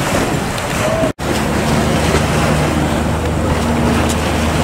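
Fishing boats' diesel engines running with a steady low rumble under the wash of churning sea water and wind. The sound drops out completely for an instant about a second in, after which the engine rumble is more prominent.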